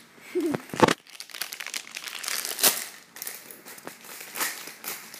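Crinkling and rustling of a popcorn bag being handled, a run of irregular crackles with one sharp loud crackle about a second in.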